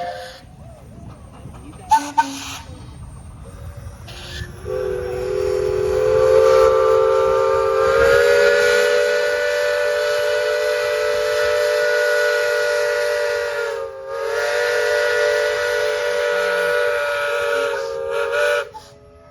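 Steam traction engine whistles blowing: a short toot about two seconds in, then from about five seconds a long, loud blast of several pitches sounding together, with a hissing edge. It dips briefly about fourteen seconds in and cuts off just before the end.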